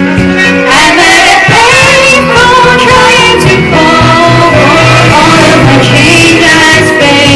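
Pop song with a female lead vocal singing over a backing track; the voice comes in just under a second in, after a short instrumental passage.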